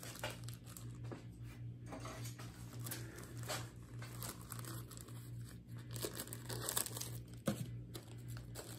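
Plastic parts bag crinkling in the hands and being cut open with scissors, irregular rustles with a few sharper snips. A steady low hum runs underneath.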